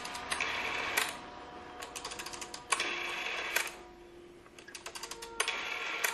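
A rotary telephone being dialed: repeated bursts of quick, even mechanical clicks as the dial spins back, between louder single clacks, over a few faint held tones.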